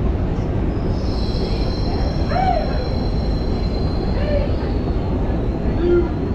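Steady low rumble and hiss of a deep London Underground escalator shaft, with a faint high whine from about a second in until about five seconds, and a few brief distant voices.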